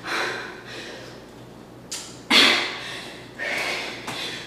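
A woman breathing hard in sharp, forceful puffs during a jump-back push-up exercise, with a quick thud of her bare feet landing on the mat about two seconds in.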